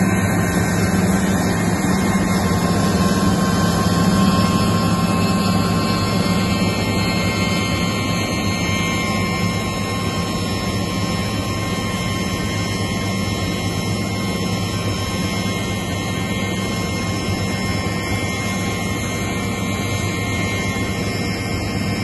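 A John Deere S680 combine harvester working close by: a steady drone of its engine and threshing machinery, with a low hum and a faint steady whine, heard from inside a vehicle cab. It eases slightly after about six seconds.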